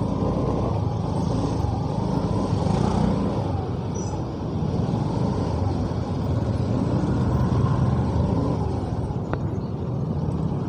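Motorcycle engine running at low speed in slow, congested traffic, its pitch rising and falling a few times as the throttle opens and closes, with other vehicles' engines close by.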